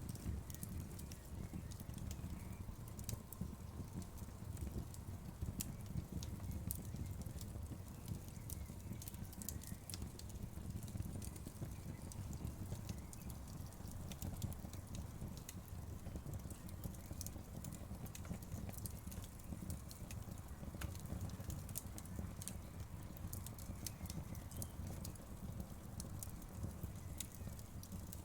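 Wood fire burning in a fireplace, with a steady low rumble of flames and frequent irregular sharp crackles and pops from the burning wood.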